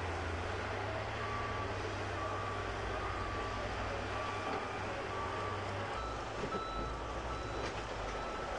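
Diesel engines of heavy loaders, including a Caterpillar 950E wheel loader, running steadily, with a reversing alarm beeping repeatedly over them. The beeps shift slightly higher in pitch about six seconds in.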